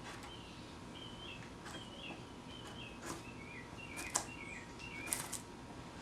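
A bird calling a run of short chirps, about two a second, stepping slightly lower in pitch as it goes, with a few sharp clicks in the second half.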